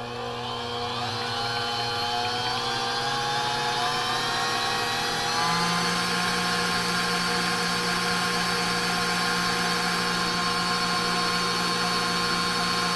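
Smeg 5-quart, 600-watt stand mixer running with its wire whisk beating chilled heavy cream into whipped cream. The motor whine climbs in pitch over the first few seconds as the mixer comes up to speed, then holds steady, getting a little louder with a low hum about five and a half seconds in.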